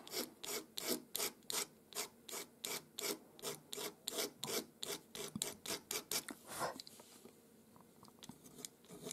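Pastel pencil scratching across pastel paper in quick, short, rhythmic strokes, about four a second, as fur hairs are drawn in. The strokes stop about seven seconds in.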